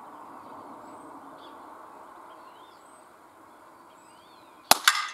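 NTK Buster .22 pneumatic air pistol firing once near the end: a sharp crack, then a second sharp crack a fraction of a second later as the pellet hits the paper target.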